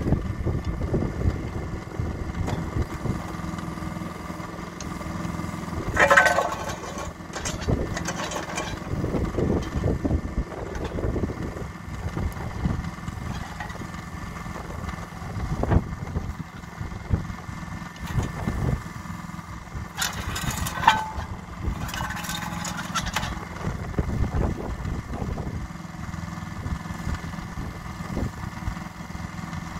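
Yanmar SV08-1B mini excavator's small diesel engine running steadily while the boom, arm and bucket are worked hydraulically, its note rising and falling with the load. Brief louder, sharper bursts come about six seconds in and again around twenty seconds in.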